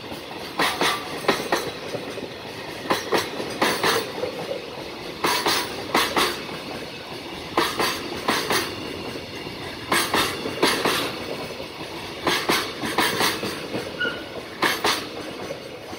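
Container flat wagons of a passing freight train rolling by, their wheels clacking over the rail joints in clusters of about four clacks every two and a half seconds or so, over a steady rumble of wheels on rail.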